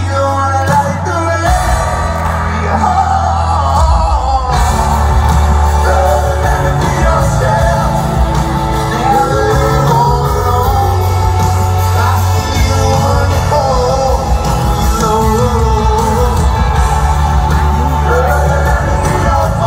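A live band playing and a singer singing, heard from within the crowd in a reverberant arena. The band grows fuller and brighter about four and a half seconds in.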